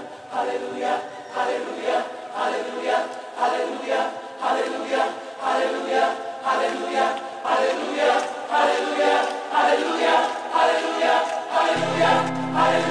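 Choral music track: a choir singing in a steady pulsing rhythm, with a low held bass note coming in near the end.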